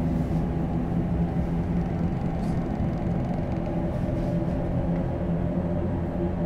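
A steady low rumbling drone with held low tones, a sustained horror-film underscore.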